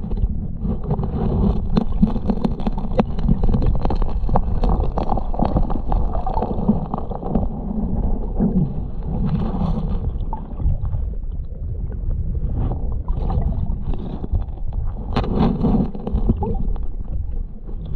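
Sound picked up by a camera underwater in a moving river: a steady rumble of the current, with many small clicks and scrapes of stones and gravel as a gloved hand digs in the riverbed, and a louder cluster of knocks about three-quarters of the way through.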